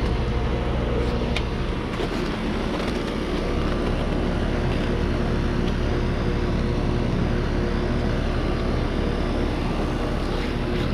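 Residential heat pump outdoor unit running in defrost, a steady hum with a broad hiss.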